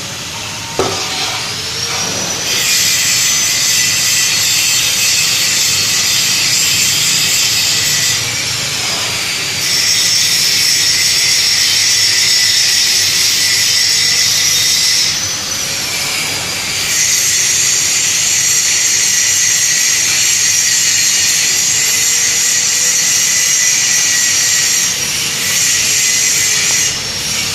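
Power tool working steel in four long passes of several seconds each, a loud high hiss with short breaks between passes. A thin motor whine dips and recovers in pitch at each break.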